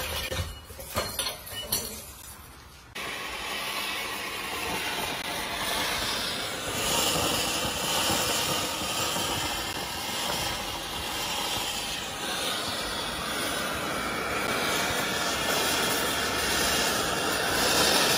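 Metal clinks and knocks from a hand-operated press. About three seconds in, these give way to a steady rushing hiss from a gas torch flame.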